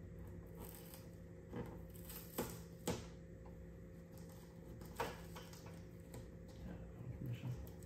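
Light clicks and taps of plastic parts being handled and pried while a flat-screen TV's speakers are taken out: four sharp clicks in the first five seconds and a few softer taps near the end, over a faint steady hum.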